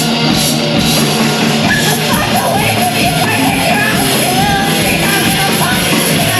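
Live rock band playing a song loud and steady, with drum kit and amplified guitars.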